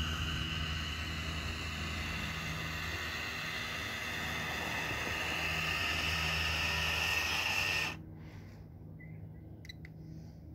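Small electric drive motors and gearing of a 1:16 scale RC Ford GPA amphibian whining steadily as it drives out of the water onto gravel, cutting off abruptly about eight seconds in as the model stops.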